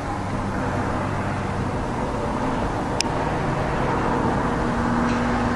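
Steady vehicle or traffic rumble with a faint hum, and one sharp click about three seconds in.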